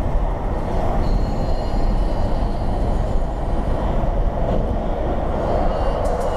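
Steady road and tyre noise inside a car cabin at dual-carriageway speed, with a container lorry running alongside.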